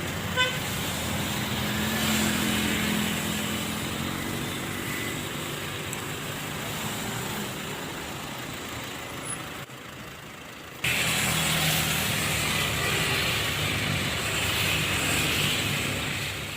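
Road traffic: motor vehicles running and passing. The sound dips for about a second near the middle, then comes back abruptly and louder.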